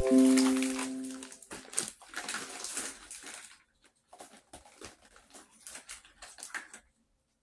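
A brief ringing musical tone at the start, then irregular rustling and handling noise close to the microphone, thinning into scattered light clicks and rustles that stop near the end.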